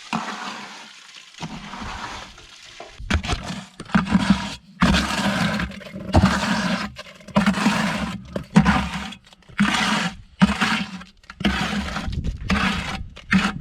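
Loose, gritty material poured in a run of about ten pours, roughly a second apart, through a cut-down traffic cone used as a spout.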